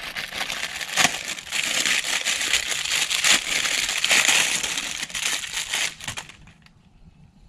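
Clear plastic parts bag crinkling and rustling in gloved hands as a new axle seal is unpacked from it. The crinkling stops about six seconds in.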